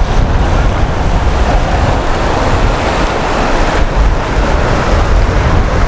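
Fast mountain river rushing over rocks in rapids, a steady loud wash of water, with wind buffeting the microphone.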